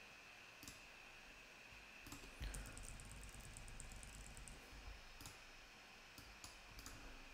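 Faint clicks of a computer mouse: a few sharp single clicks at uneven intervals, with a quick run of fainter ticks about three seconds in, over quiet room tone.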